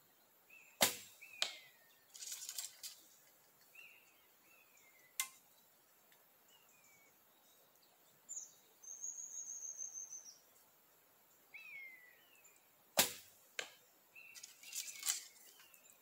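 Bow shots: two sharp string releases about twelve seconds apart, each followed within a couple of seconds by lighter knocks and a brief clatter as the arrow strikes and comes down. Small birds chirp in between.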